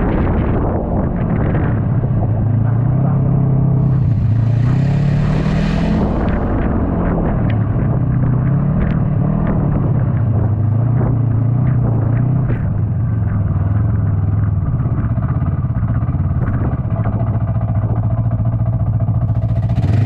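Yamaha snowmobile engine running under way, its pitch rising and falling with the throttle several times before settling into a steady drone. A brief rush of hiss comes in about four seconds in.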